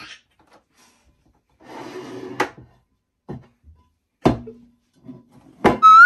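White ceramic bowls being handled on a tabletop: a brief rustle about two seconds in, then several separate knocks as the bowls are set down and moved, and a short rising squeak near the end as one is lifted.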